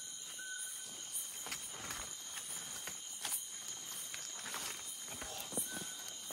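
Night insects chirring steadily at several high pitches, with scattered rustles and crackles of dry leaves and brush underfoot. A brief thin whistle-like tone comes near the start and again near the end.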